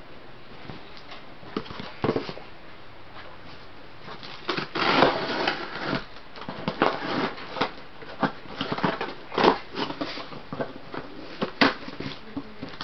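Cardboard shipping box being handled and cut open with scissors: irregular scraping, rustling and tapping of cardboard and tape. A few light knocks at first, then busier from about four seconds in.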